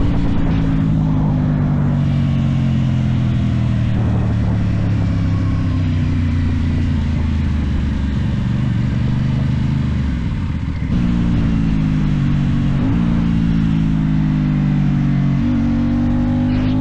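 Aprilia Tuono 660's parallel-twin engine running through a cheap aftermarket exhaust while riding. The engine note eases steadily, drops away briefly about ten seconds in, then picks up again and rises near the end.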